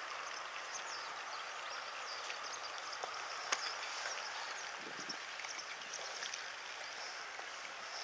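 Steady outdoor background hiss with faint high chirps, a few light clicks and one sharper click about three and a half seconds in.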